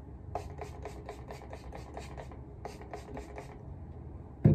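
Hands rubbing and scrunching through natural hair, a rapid rustling scratch of about four to five strokes a second that stops about three and a half seconds in. A single dull thump comes right at the end.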